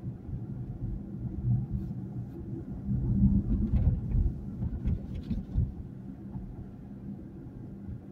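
Low road and engine rumble of a moving car, heard from inside the cabin. From about three seconds in, the rumble grows louder and uneven for a few seconds, with a few faint clicks, then settles back.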